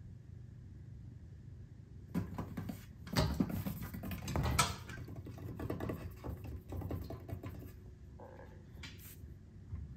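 A cat scrabbling and swatting at a wooden TV-stand upright, its claws and paws making a run of scratches and knocks for several seconds after a quiet start, with one more short knock near the end.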